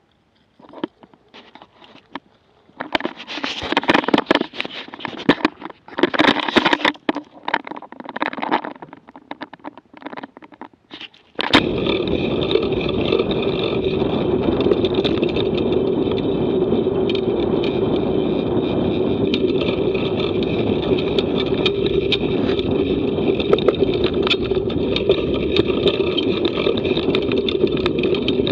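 Mountain bike riding heard from its mounted action camera. Scattered rattles and scrapes come first; then, about eleven seconds in, a loud steady noise of tyres rolling over gravel and fallen leaves starts suddenly, with wind on the microphone.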